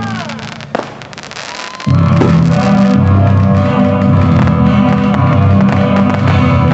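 Fireworks crackling, with a short whistle gliding up and down and a sharp bang, heard in a brief pause in the display's music. About two seconds in, the music comes back loud and carries on.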